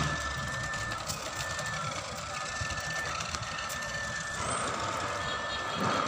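Toy remote-control racing car driving across concrete, its built-in electronic sound effect playing a repeating beep pattern that switches between two high pitches, over a steady hiss.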